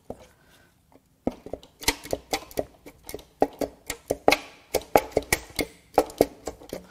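Cylinder head of a VR30DDTT V6 being rocked and worked loose from the engine block by hand: starting about a second in, a quick, irregular run of sharp metal clunks and knocks as the stuck head shifts against the block.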